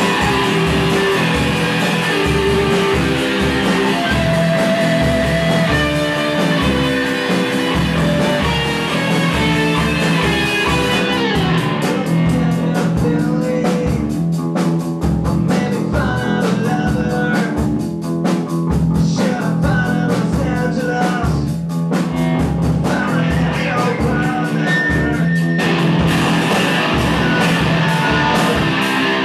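A live rock band playing: electric guitar, bass guitar and drums, with a singer's voice over them. The full sound thins out about eleven seconds in and fills back up near the end.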